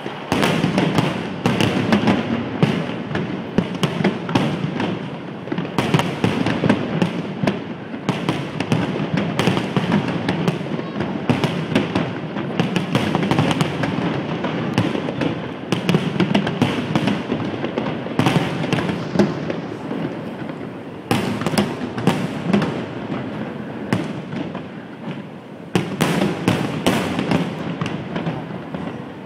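Fireworks display: aerial shells bursting with many loud bangs in quick, near-continuous succession. The bangs thin out and soften for a few seconds about three-quarters of the way through, then come thick and loud again.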